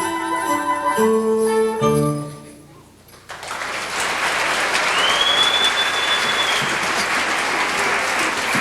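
The last notes of a piece of music with jingle bells end about two seconds in. After a short pause, an audience starts applauding, and a single whistle rises and holds for a couple of seconds in the middle of the clapping.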